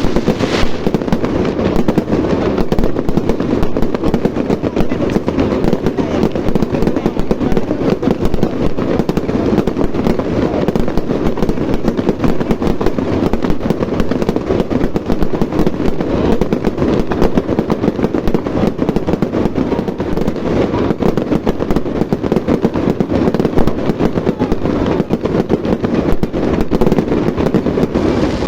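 Fireworks going off in a dense, continuous barrage of rapid bangs and crackles, with no let-up.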